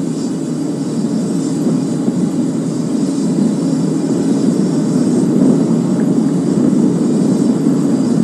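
Steady rushing noise of the Falcon 9 rocket venting propellant vapour on the launch pad during the final countdown, slowly growing louder.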